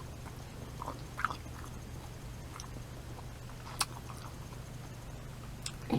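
Quiet chewing of a mouthful of sausage in pastry, heard as a few faint mouth clicks, the sharpest near the four-second mark, over a steady low hum.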